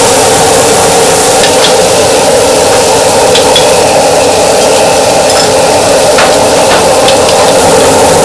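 Steady rushing noise of a gas wok burner with liquid boiling and bubbling in the wok, and a few light clinks of spoon and ladle against bowls.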